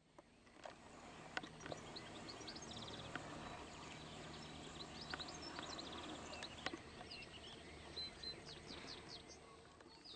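Wild birds chirping and singing, scattered short high calls over a faint steady background noise, fading in at the start. A few soft clicks sound here and there.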